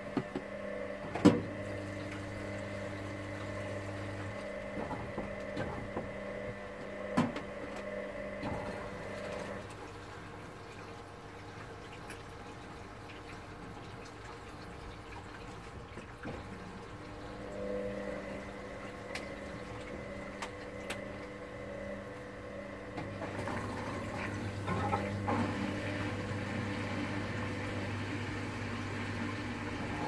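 Hoover Dynamic Next front-loading washing machine in its wash cycle: the drum motor whirs as the drum tumbles the wet laundry with water sloshing, stops for several seconds, then turns again. A sharp knock about a second in, and another a few seconds later.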